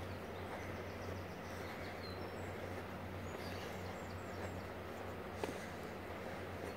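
Outdoor park ambience: a steady low rumble and hiss with faint, brief bird chirps, and a single sharp click about five seconds in.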